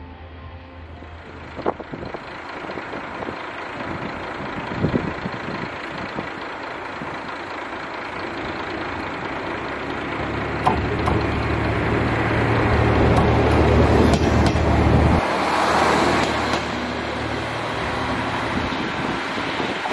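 Kashima Rinkai Railway diesel railcar running past and pulling away down the track, its engine drone and wheel noise building to a peak, then the engine's low drone dropping off suddenly about 15 seconds in as it heads away.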